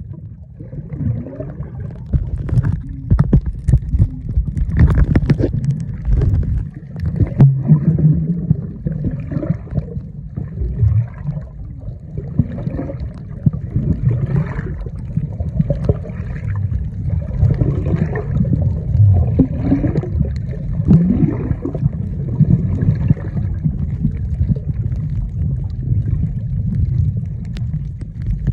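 Muffled underwater water noise: a steady low rumble with gurgling. A cluster of sharp clicks comes about three to six seconds in.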